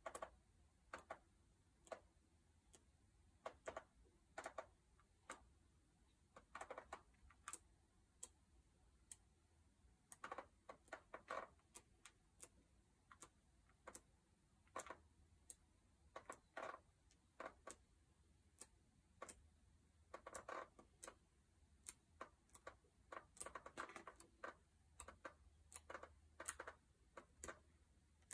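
Pages of a large art book's thick paper being turned by hand, quiet and close. A soft swish comes every few seconds as a page turns over, with many small crisp paper ticks and crackles in between.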